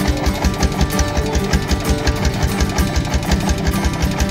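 Vintage tractor engine running at a steady slow idle, a regular low thumping of about eight beats a second.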